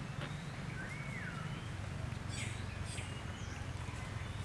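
Outdoor ambience: a steady low hum with a few faint, high chirping calls, one rising and falling about a second in, and a couple of faint ticks.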